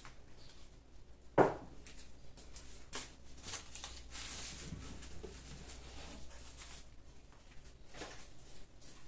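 Household objects being handled and set down on a kitchen counter: scattered clicks, light knocks and rustling, with one sharp knock about a second and a half in.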